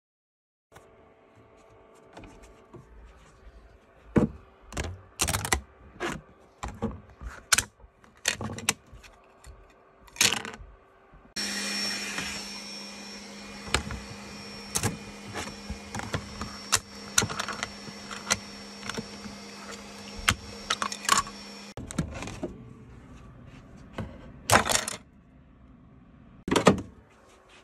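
Freshly 3D-printed plastic frame parts being handled and removed from the printer: a run of sharp clicks, snaps and clattering knocks on a wooden desk. For about ten seconds in the middle a steady mechanical hum runs under the clicks, starting and stopping abruptly.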